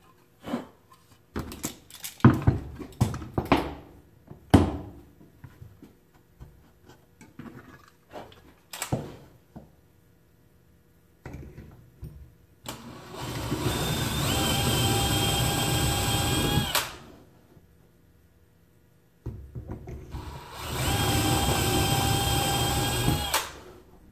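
DeWalt cordless drill boring dowel holes through a metal dowel jig into a wooden plank, running in two bursts of about four and three seconds with a steady whine. Before the drilling, boards and tools knock and clatter on the wooden workbench.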